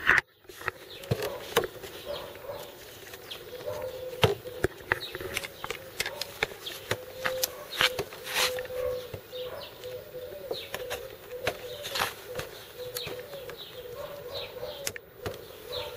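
Scattered light knocks and clicks of a wooden folding-kayak frame being handled as a foam-padded tube is fitted onto its ribs and stringers, with birds chirping throughout.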